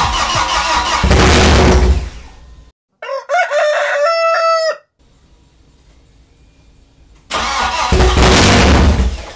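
BMW M42 1.8-litre four-cylinder engine, with no exhaust fitted, turning over on its first start attempts in two loud bursts of about two seconds each. Each burst jumps louder about a second in. Between the bursts a rooster crows once.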